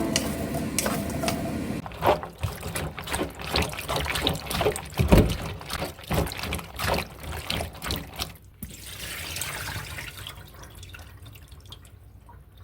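Liquid being poured and trickling, with irregular splashes, softening to a faint hiss near the end. Background music fades out in the first couple of seconds.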